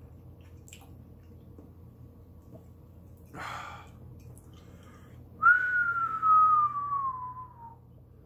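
A man blows out a sharp breath. About two seconds later he whistles one long note that slides slowly downward, a reaction to the burn of a hot pepper pod.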